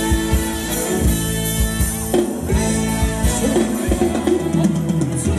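Live band playing Thai ramwong dance music: a drum kit keeps a steady beat under bass and guitar.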